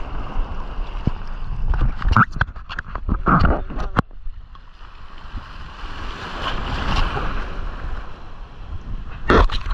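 Wind rumbling on the microphone over water washing at the shore, with a swell of water noise midway. Irregular sharp knocks come about two to four seconds in and again near the end.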